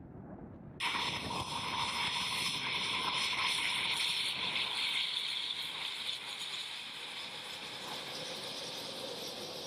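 Eurofighter Typhoon's twin EJ200 turbofan engines whining steadily at taxi power. The whine cuts in suddenly about a second in over a low rumble and eases slightly in the second half.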